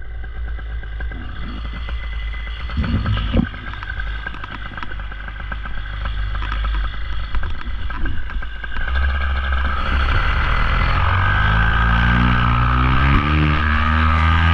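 Paramotor engine running at low throttle with some clatter, then opened up about nine seconds in, getting louder with its pitch climbing steadily.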